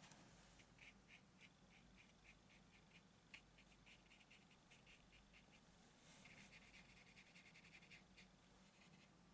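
Faint, short scratches of a drawing tool on textured watercolor paper, a few strokes a second, thickening into a denser run of scratching about six seconds in. A low steady hum sits underneath.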